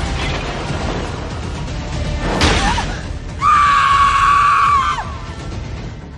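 Soundtrack music with a sudden hit about two and a half seconds in, then a long, loud, held scream lasting about a second and a half.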